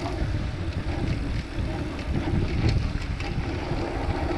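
Wind buffeting the microphone of a GoPro HERO 7 Black on a moving mountain bike, with a steady low rumble of tyres rolling over a dirt track.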